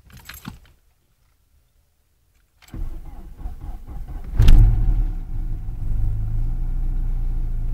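Ford Sierra 2.0 DOHC four-cylinder engine on a winter cold start. The starter cranks for about a second and a half, then the engine catches with a loud surge and settles into a steady idle.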